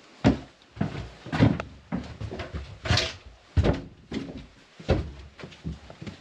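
Footsteps thudding on a wooden floor and then up wooden stairs, a step about every half second.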